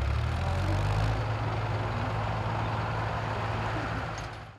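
Silage harvester's engine running steadily: a low, even engine hum under a broad rushing noise. It cuts off abruptly at the end.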